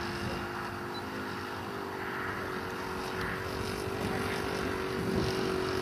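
Radio-controlled model aeroplane in flight, its glow engine converted to run on petrol and running with a steady drone.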